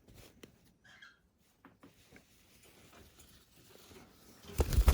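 Quiet handling noise while a pet conure is held for wing-feather trimming: small clicks and scratches, then a loud rustling bump near the end.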